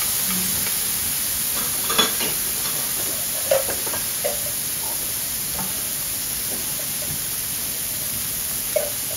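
Thin slices of beef sizzling steadily on a hot teppanyaki griddle, with a few sharp pops about two seconds in, twice around three and a half to four seconds, and once near the end.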